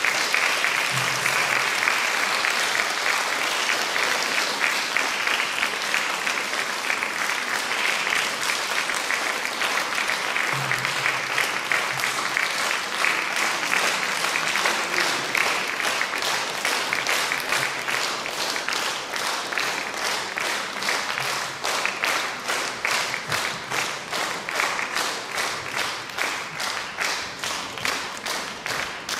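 Audience applauding. The clapping is dense and scattered at first, then settles into steady rhythmic clapping in unison from about halfway, growing gradually quieter.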